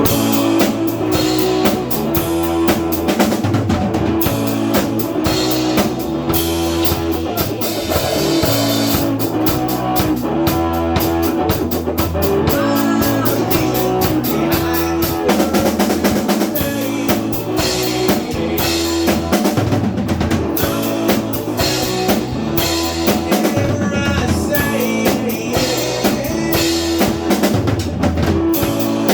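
A band performing, with a drum kit keeping a steady beat over sustained low bass notes, no vocals.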